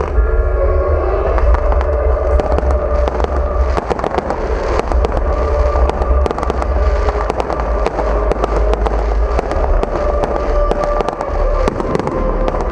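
Fireworks display: dense crackling and popping from many bursting shells, with a steady low rumble underneath.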